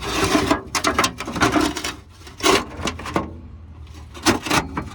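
Several short bursts of scraping and rasping from hand work under a car, the longest in the first second and others about two and a half and four and a half seconds in.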